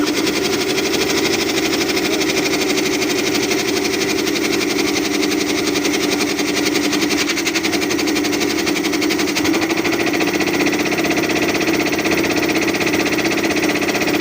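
20 HP belt-driven air compressor running steadily on its test run: a loud, even hum with a rapid, regular pulsing. Its drive belt is said to be in bad shape.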